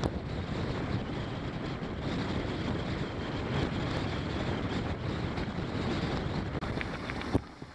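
Wind buffeting the microphone of a camera on a mountain bike riding a rough dirt track, mixed with the rumble of the tyres on the surface. There is a sharp knock near the end, and then the noise drops away.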